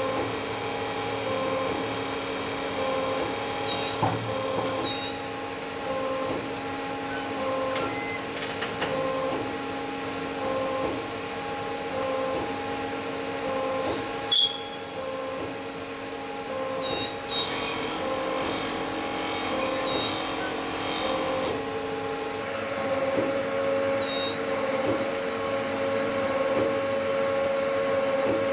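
CNC turning centre machining a spinning metal part: a steady mechanical whine made of several held tones, with a regular pulsing in it, as drill and turning tools cut. One sharp click about fourteen seconds in.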